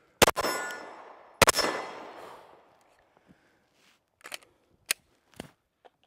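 Two handgun shots about 1.2 seconds apart, each followed by a long echo rolling away for about a second. A few faint clicks near the end.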